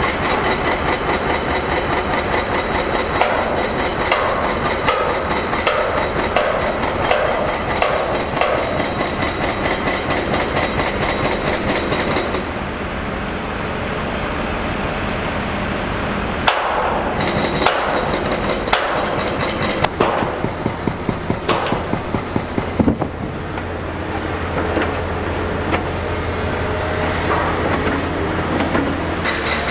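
Heavy worksite machinery: a diesel engine running with a fast, rhythmic metallic clatter and scattered clanks. The sound shifts abruptly a couple of times.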